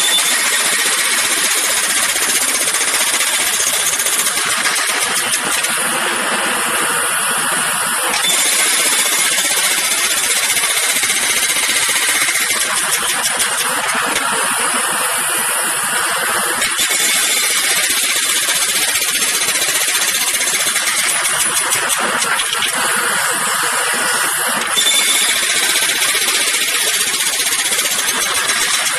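Jackhammer hammering continuously, a rapid, unbroken stream of impacts whose tone shifts a few times.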